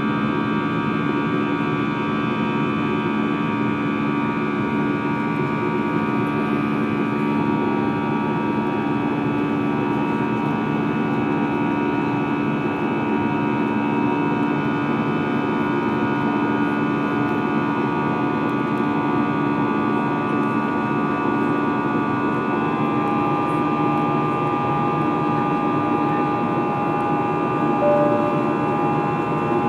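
Steady cabin noise of an Airbus A320 airliner, with the engines' whine heard as a set of steady tones over a broad rush. About two-thirds of the way through, the engine tones shift to new pitches, a change in engine thrust.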